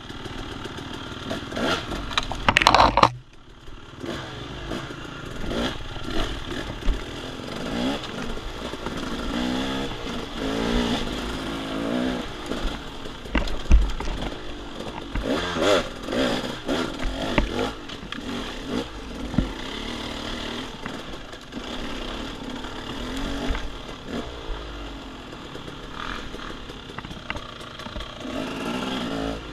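Off-road dirt bike engine revving up and down as it rides a woods trail, with a hard burst of throttle early on that cuts off suddenly, and scattered knocks and clatter from the bike over rough ground.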